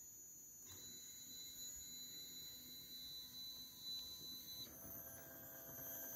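Stepper motors of a homemade egg-painting machine whining faintly. A single steady high tone starts about a second in, then at about four and a half seconds changes to a hum of several steady pitches together.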